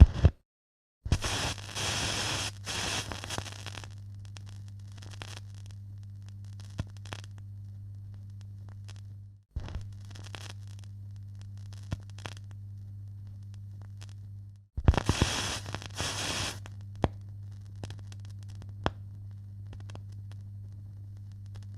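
Television interference noise: a steady low electrical hum with loud bursts of static hiss and scattered crackling clicks. It breaks off briefly three times as one take gives way to the next.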